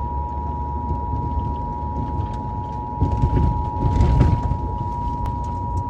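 Emergency Alert System attention signal: two steady tones just under 1 kHz sounding together, over a low rumbling background noise that swells about three to four seconds in.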